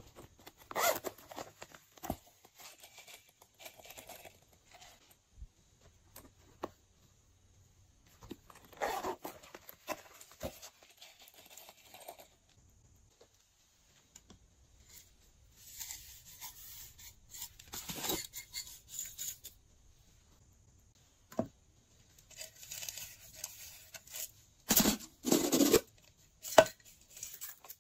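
Plastic slime containers being handled, opened and tipped out. There are intermittent bursts of rustling and scraping with sharp clicks, and the loudest come near the end.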